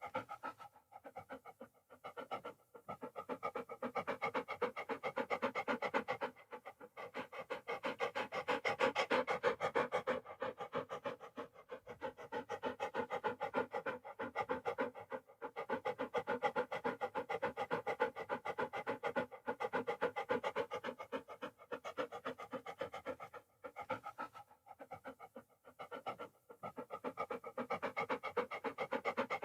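A dog panting in rapid, even breaths, in and out, with a few brief pauses between runs.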